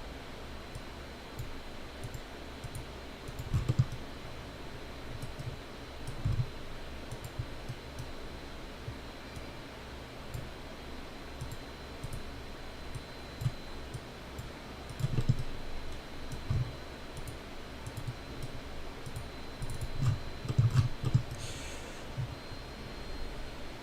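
Scattered clicks and taps at a computer keyboard and mouse, with a few soft low thumps, over a faint steady high-pitched whine.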